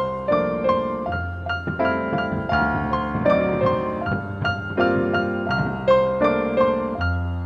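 Background piano music: a gentle melody of struck notes over low bass notes.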